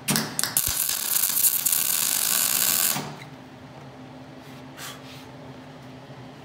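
Hobart wire-feed (MIG) welder arc crackling and hissing for about three seconds. It starts with a few short sputters, then cuts off abruptly. A nut is being welded onto a snapped-off bolt so that the weld's heat loosens it. A low steady hum runs underneath.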